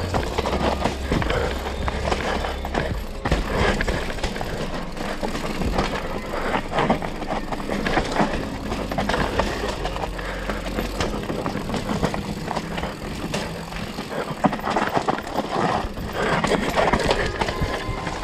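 Mountain bike descending a loose, rocky trail: tyres crunching over stones while the bike's chain, frame and suspension rattle with each hit, a continuous clatter of sharp knocks.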